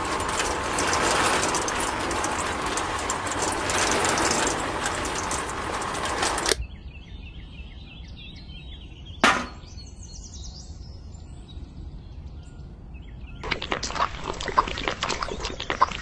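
A toy concrete mixer's drum turning, driven by its small electric motor, with a steady rushing noise that cuts off suddenly about six and a half seconds in. A single sharp knock comes about nine seconds in. From about thirteen seconds the wet grey mix is poured from the tipped drum into a small pail, with a rough, crackly sound.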